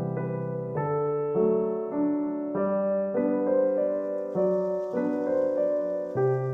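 Soft background piano music, with notes and chords struck every half second or so.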